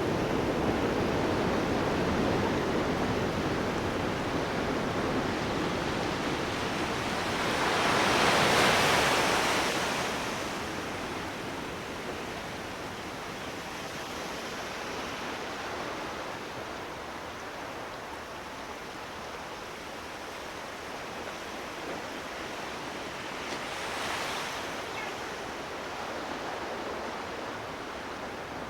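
Sea waves: a steady wash of surf, with one louder wave swelling and breaking about a third of the way in and a smaller one near the end.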